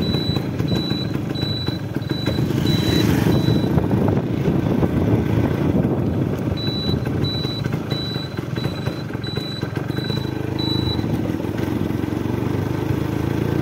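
Suzuki Samurai two-stroke motorcycle engine running as the bike is ridden along. A short high beep repeats about one and a half times a second in two stretches, early and in the middle.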